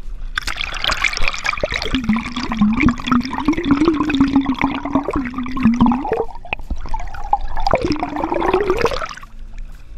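River water rushing and gurgling over a submerged camera microphone in a fast, shallow stream. The sound is loud and muffled, with a steady low tone through the middle that sweeps upward just before it stops, about nine seconds in.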